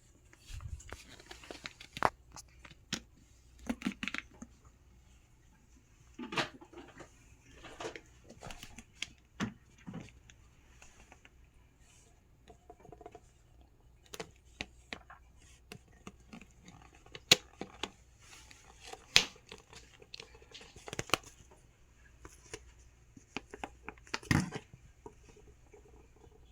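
Scattered, irregular clicks, taps and brief crinkling rustles of things being handled, over a faint steady high hiss.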